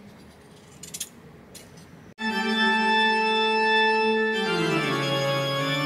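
Background music of sustained organ-like keyboard chords, starting suddenly about two seconds in and shifting to a lower chord near the end. Before it there is only faint hiss with a couple of soft clicks.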